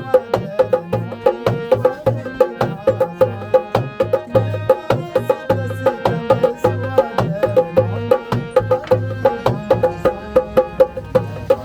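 Instrumental passage of a Kumaoni folk song: hand drums keep a quick, steady beat under sustained melody instruments, with no singing.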